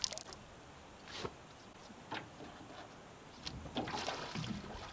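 Light knocks and rustles of people moving and handling gear in a small aluminum boat: a couple of single knocks, then a busier patch of rustling and knocking near the end.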